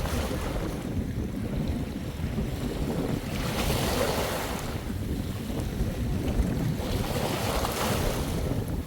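Sea waves washing onto the shore, two swells of hiss a few seconds apart, with wind rumbling on the microphone.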